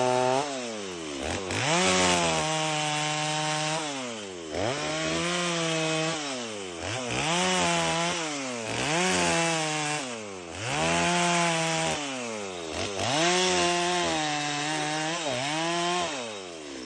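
Holzfforma G255 two-stroke chainsaw revving up and dropping back about six times, each rise held for a second or two, while it saws through wood. The engine falls away near the end.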